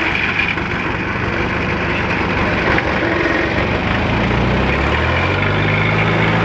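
Engine running steadily, then revving up about four seconds in, its pitch rising and holding higher.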